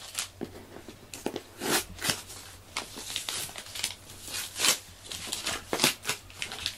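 A cat scratching and digging in the litter of its litter box to cover its waste, the granules crunching and rustling in irregular scrapes.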